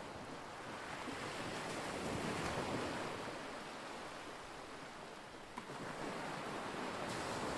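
Small lake waves washing in and drawing back, swelling and fading every couple of seconds, with wind.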